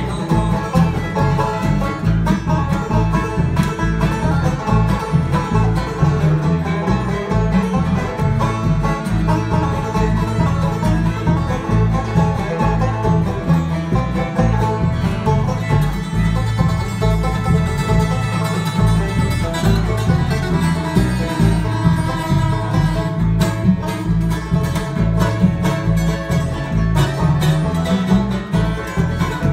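Live acoustic bluegrass band playing an instrumental passage: five-string banjo prominent, with fiddle, strummed acoustic guitars and upright bass underneath, at a steady driving pace.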